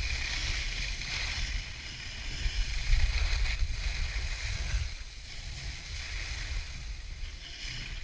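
Skis sliding and carving on firm packed snow, a scraping hiss that rises and falls with the turns and is louder in the first few seconds, over a low wind rumble on the camera's microphone.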